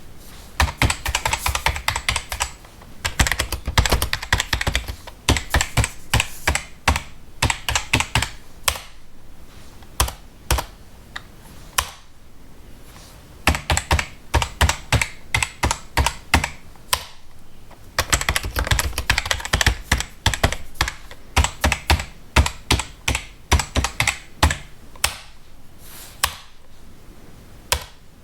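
Typing on a computer keyboard: quick runs of key clicks, broken every few seconds by short pauses.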